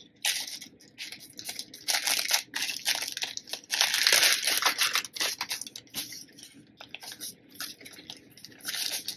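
Clear plastic zip-lock bags crinkling and rustling in irregular bursts as hands open and handle them, loudest about four seconds in.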